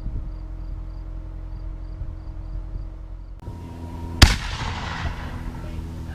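A steady low rumble with faint, high, repeating chirps, then a single sharp, loud bang about four seconds in that rings out afterwards.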